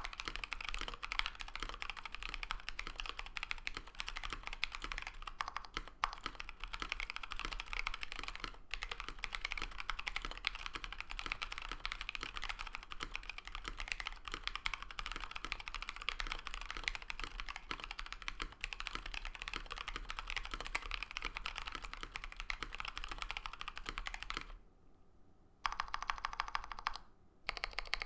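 Continuous typing on a KBDFans KBD67 Lite R2 mechanical keyboard with stock, factory-lubed Pewter light tactile switches mounted in a polycarbonate plate, under PBT keycaps: a dense stream of quick key clacks. The typing stops briefly about three seconds before the end.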